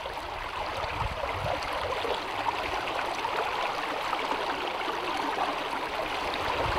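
River water flowing with a steady, even rush.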